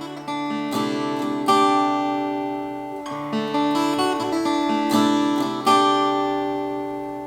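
Yamaha FS-100C steel-string acoustic guitar played: chords struck every second or two and left ringing, with single notes picked between them as each chord slowly dies away.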